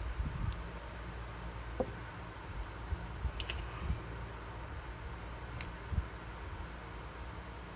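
A few small, scattered clicks and light taps as the small plastic and metal parts of a disassembled IQOS 2.4 heater holder are handled, over a steady low hum.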